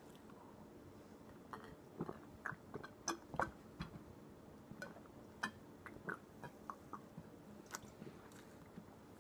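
Faint, close-miked mouth sounds of a man drinking from a bottle: a scattered string of short wet clicks and gulps as he swallows, starting about a second and a half in.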